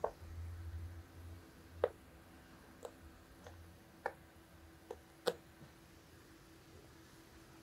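Faint, scattered clicks and taps, about seven in the first five seconds, as a cat's claws catch on carpet and packing twine while it plays.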